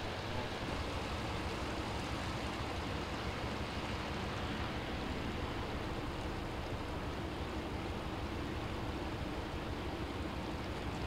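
Steady rushing of floodwater from a broken water main running along the street, an even wash of noise with a low hum underneath.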